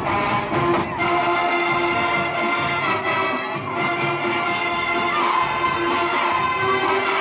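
A combined high-school marching band and middle-school band playing: brass and winds holding long sustained chords, backed by the drum line.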